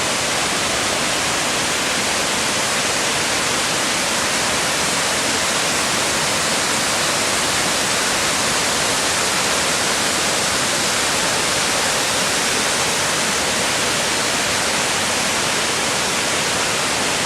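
Dip Falls waterfall in full flow after heavy rain: a steady, unbroken rush of falling water.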